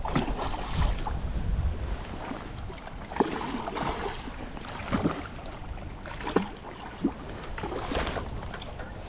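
Running river water and wind on the microphone, a steady rush, with a few sharp clicks or knocks in the second half.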